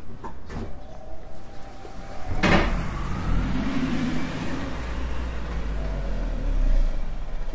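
A motor vehicle passing close by, a low rumble with a hiss that swells and then fades near the end, with a sharp knock about two and a half seconds in.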